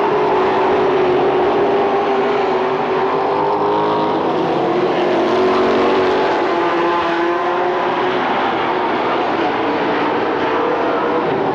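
A field of late model stock cars racing on the oval, their V8 engines running hard in a steady, overlapping drone whose pitch wavers as the cars go by.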